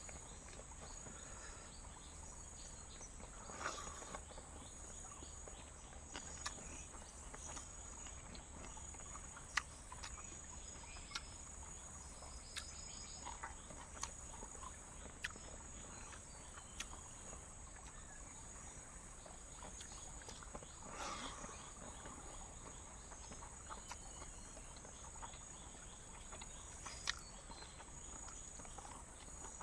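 Steady high-pitched chorus of jungle insects, with scattered sharp clicks and crunches from someone eating crispy roast pork close to the microphone. The loudest click comes about ten seconds in.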